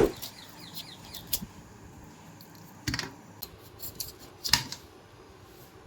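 Kitchen knife cutting through a pineapple: three sharp knocks of the blade against the board, the second and third about three and four and a half seconds in, with fainter scraping and clicking cuts between.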